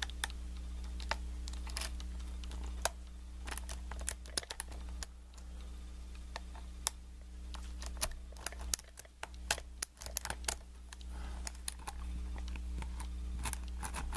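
Small, irregular metallic clicks and taps of a lock pick and tension wrench working the pins inside a Kwikset knob cylinder, over a steady low hum.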